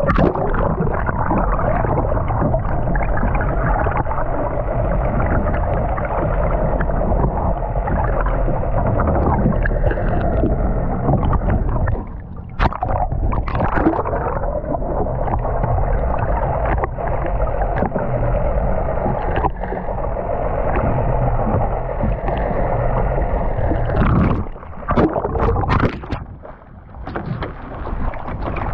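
A boat engine running under way, with water rushing and splashing along the hull in a steady, loud wash. A few sharp knocks come near the end.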